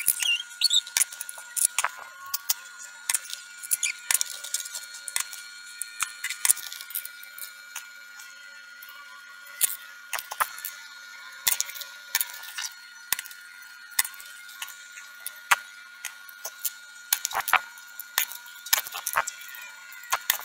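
Spring-loaded desoldering pump (solder sucker) being cocked and fired at the solder joints of a small circuit board, giving irregular sharp clicks and snaps with small scrapes between them.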